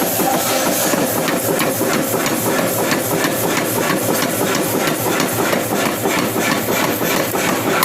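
Hammer blows on hot steel at the anvil, quick and regular at about four strikes a second, over a steady mechanical running noise.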